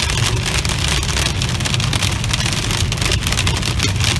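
Hail pelting a moving car, a dense patter of small impacts over a steady low road rumble.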